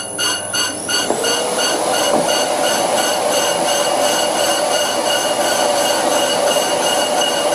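Cast-iron brake disc being turned on an old bench lathe with a round carbide insert, over the steady whine of the lathe's frequency-drive motor. For about the first second the cut pulses about four times a second, then it settles into a continuous, even cutting tone.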